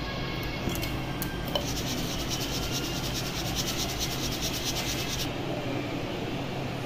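Ground sabudana (sago) flour being rubbed through a fine mesh sieve with the fingers: a steady scratchy rasp, with a run of quick, even rubbing strokes from about a second and a half in until about five seconds in.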